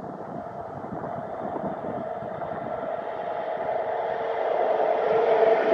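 Škoda-built class 181 electric locomotive hauling a train of tank wagons as it approaches. The rumble of the train grows steadily louder, with a steady hum that comes up strongly near the end.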